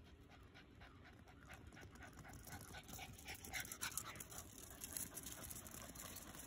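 An elderly pug panting rapidly and hard from running, in quick, even breaths that grow gradually louder.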